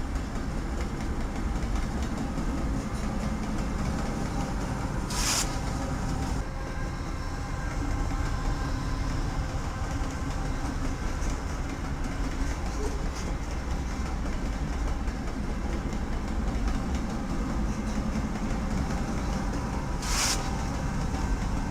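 Railroad cars rolling past on the rails in a steady rumble, with two brief high-pitched bursts, about five seconds in and near the end.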